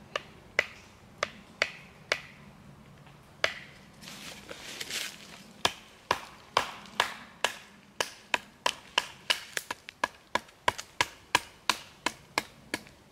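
A large fixed-blade bushcraft knife being struck into dry, hard wood: first batoned with a wooden stick, then chopped against an upright stake. It makes sharp wooden knocks, a few spaced ones at first, then a quicker run of about two or three a second in the second half.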